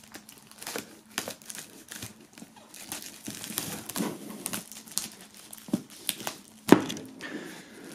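Plastic shrink-wrap film being cut open and pulled off a cardboard box: irregular crinkling and crackling, with one sharper crackle near the end.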